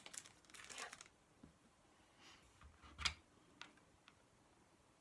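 Crinkling and rustling of paper craft flowers being handled for about the first second, then a few light clicks and a sharper knock about three seconds in as pieces are set down on the work surface.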